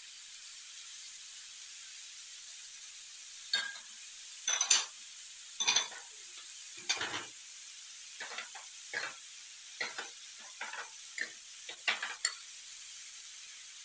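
Shredded vegetables and chicken sizzling in a frying pan with a steady hiss. From about three seconds in, a plastic spatula scrapes and stirs through them in a dozen or so short strokes.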